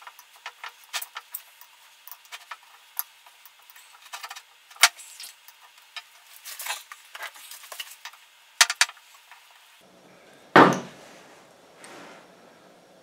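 Small metal hand tools clicking and scraping against a hydraulic bottle jack as a screwdriver and then pliers work at its oil filler plug. The clicks come irregularly throughout, with a quick run of three sharper clicks a little before the end and one louder knock shortly after.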